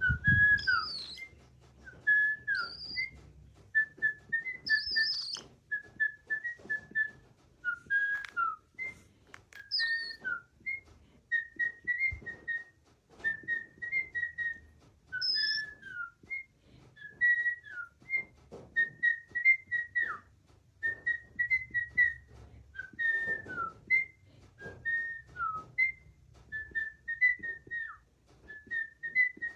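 Whistling: short whistled notes repeated in quick groups of two to four, most held steady and some sliding up or dropping at the end.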